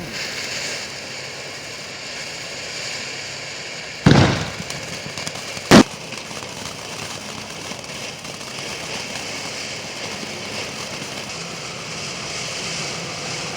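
Consumer fireworks going off: a steady hissing crackle of burning, broken by two loud bangs about four and six seconds in.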